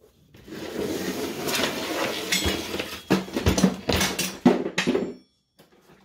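A heavy Badland ZXR 9000 lb electric winch, with its red power cables, being dragged and lifted off a workbench, scraping and rattling, with several sharp metal clunks in the second half as it is set down.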